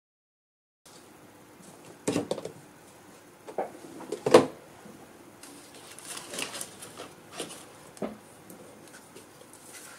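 Handling sounds of papercraft on a craft mat: paper and card cut-outs rustling, with light taps as pieces are set down, the sharpest tap about four and a half seconds in. The sound cuts in after about a second of dead silence.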